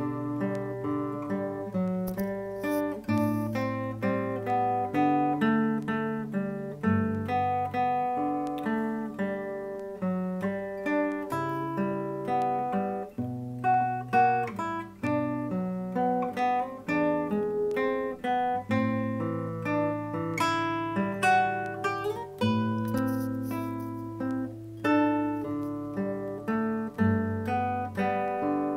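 Solo classical guitar, fingerpicked: a steady stream of plucked notes, a melody over flowing broken chords, with deep bass notes left ringing underneath.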